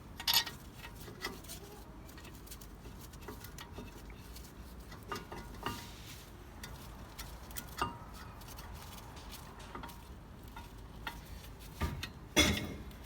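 Irregular metallic clicks and clinks of bolts and hand tools against the steel brake caliper carrier as its bolts are hand-threaded, with a sharper metal clank just after the start and another near the end.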